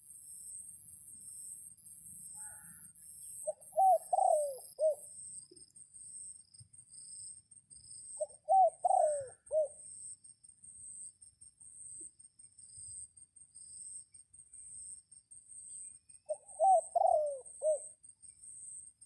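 A dove cooing: three phrases of several quick, curved coo notes, about four, nine and seventeen seconds in. Insects chirp steadily in a high, pulsing rhythm throughout.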